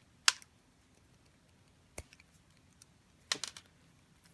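Hand wire stripper clicking as it bites into and pulls insulation off a wire: a sharp snap about a third of a second in, a single click around two seconds, and a quick run of clicks near the end.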